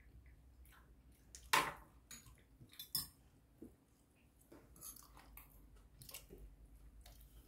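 Close-up eating sounds: chewing with scattered light clicks and scrapes of a spoon in a ceramic rice bowl. The loudest is a short scrape about one and a half seconds in.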